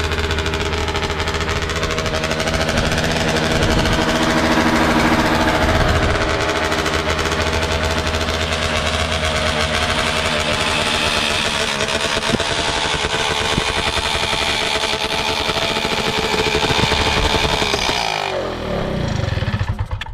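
Small 210cc two-stroke engine running through an unsilenced expansion-chamber exhaust, revving up and down a few times, then winding down and stopping near the end: the first test run of a homemade jet drive unit.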